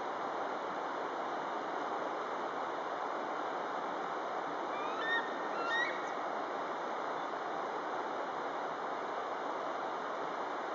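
Fast shallow river rapids rushing steadily over rocks. About five seconds in, a short burst of bird calls sounds over the water noise.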